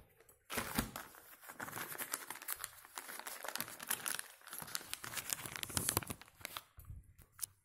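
Black plastic mailing bag crinkling and crackling irregularly as it is handled.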